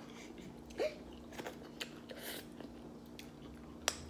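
Close-up chewing and mouth sounds of people eating fried fish tacos: soft wet chewing with small lip smacks and clicks. One sharp click near the end is the loudest sound.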